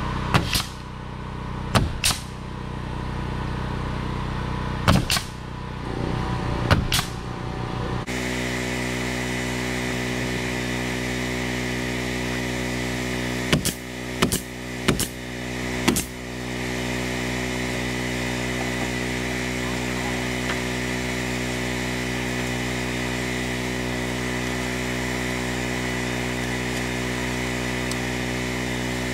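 Pneumatic nail gun firing nails into poplar bark siding panels: about ten sharp shots in two groups, some in quick pairs, over a steady machine hum.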